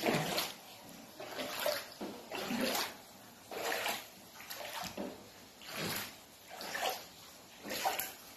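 Shallow rainwater flooding a floor, sloshing and splashing in regular strokes about once a second.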